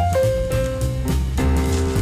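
Instrumental background music: held notes over a steady bass line.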